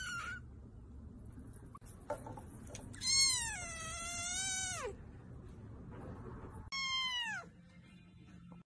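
Kittens meowing in high, thin calls: the tail of one meow at the start, a long meow about three seconds in that drops in pitch at its end, and a shorter falling meow near the end.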